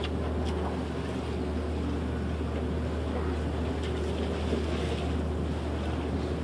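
Steady low drone of a boat's engine running, with wind noise on the microphone.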